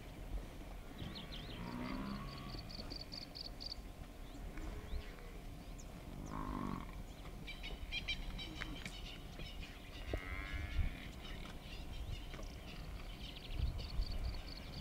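Cape buffalo lowing: two low moo-like calls, one about two seconds in and one a little before the middle. Birds chirp and trill in quick high notes around them.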